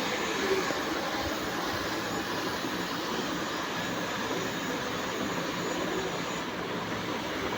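Small DC gear motors of a toy-sized ESP32 camera rover running steadily as it drives its programmed route.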